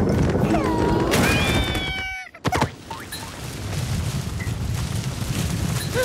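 Cartoon sound effects: a steady low rumble, with sliding whistle tones about a second in. The sound cuts out briefly about two seconds in, then a single sharp hit, and the rumble resumes.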